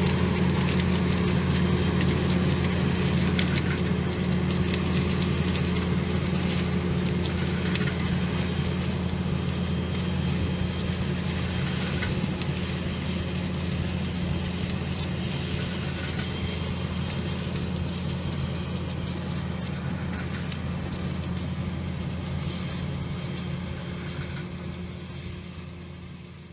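ERO grape harvester's diesel engine running steadily, with scattered clicks and rattles over the drone, slowly getting fainter as the machine works its way down the vine row. It fades out at the very end.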